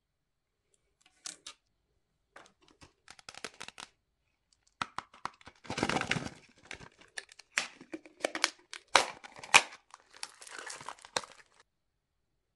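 Plastic packaging crinkling and tearing, with sharp plastic clicks and snaps, as a plastic surprise egg is opened and the fidget spinner inside is unwrapped. A dense rustle about halfway through, then several sharp clicks.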